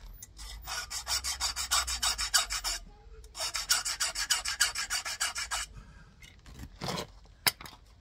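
A flat file rasping across a brass key blank clamped in locking pliers, in two runs of quick, even strokes, filing down the marks left by the lock's pins while impressioning a key. A short sharp click near the end.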